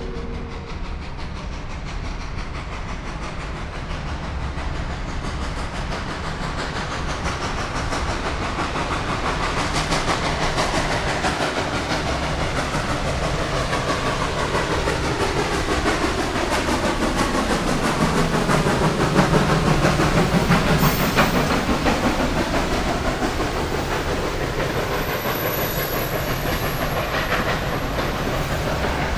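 Reading & Northern 425, a 4-6-2 steam locomotive, passing with its train, growing louder to a peak about two-thirds of the way through, with steam hiss and wheels clacking over rail joints. The last of a steam whistle blast fades out in the first second.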